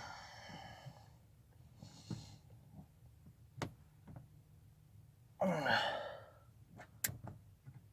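A man's heavy breathing and sighs, with a strained grunt about five and a half seconds in, as he squeezes a crimping tool down on a butt-end wire connector. Two sharp clicks come from the tool, one in the middle and one near the end.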